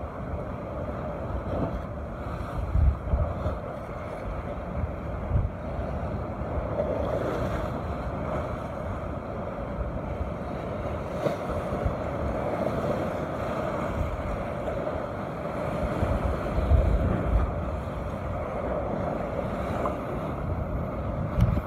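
Rough surf washing against a rocky shore, a steady rushing noise, with wind buffeting the microphone in several louder low gusts.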